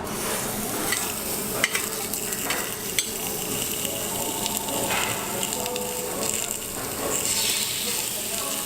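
Meat sizzling on a Korean barbecue tabletop grill, a steady frying hiss, with a few sharp clicks.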